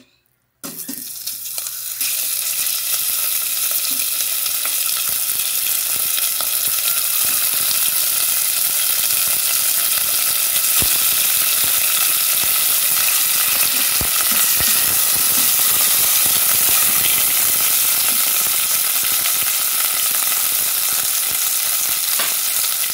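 Diced chicken breast frying in hot oil in a stainless steel pot: a steady loud sizzle that starts about half a second in as the first pieces go in and grows louder at about two seconds as more are added. A few light clicks sound around the middle.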